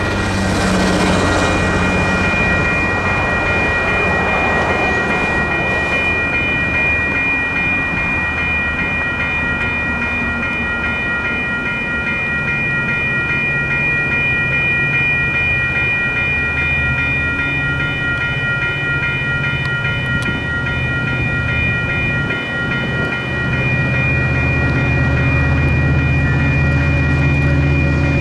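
Railroad grade-crossing warning bell ringing steadily over the rumble of a passing train.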